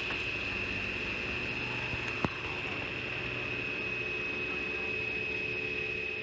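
CNC pipe-drilling machine running with a steady high-pitched whine over a mechanical hum, and a single sharp click about two seconds in.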